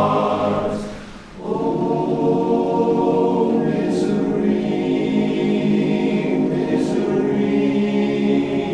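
Barbershop chorus singing a cappella in close harmony. A held chord fades away about a second in, and after a short breath a new chord swells in and is sustained, with two crisp 's' sounds in the words.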